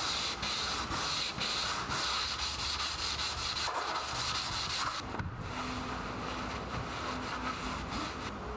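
Fine sandpaper rubbed by hand in quick back-and-forth strokes over the steel blade of a tenon saw, a scratchy rasp giving the brushed finish a light polish. The strokes stop about five seconds in, leaving a softer, steadier rubbing.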